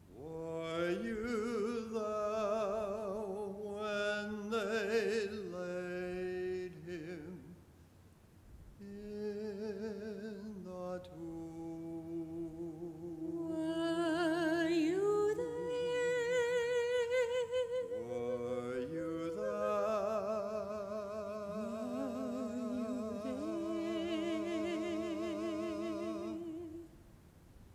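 A man and a woman singing a slow duet in long held phrases with vibrato, pausing briefly between phrases; the singing stops about a second before the end.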